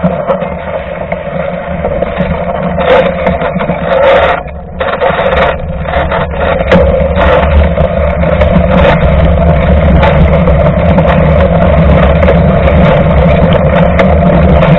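Mountain bike riding over a wet, muddy dirt road and then wet pavement, heard from a camera mounted by the front tyre: steady tyre and wind rumble, with frequent small clicks and rattles.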